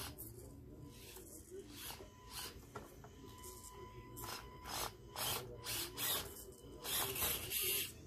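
Small electric motor of an SCX24 1/24-scale RC crawler whining in short bursts of throttle as its tyres scrabble and scrape on stone slabs, the loudest bursts near the end.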